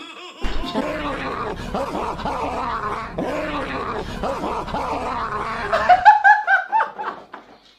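Edited meme audio: a dense jumble of overlapping voice-like sounds over a low hum, then a second of loud, high-pitched laughter from two men near the end.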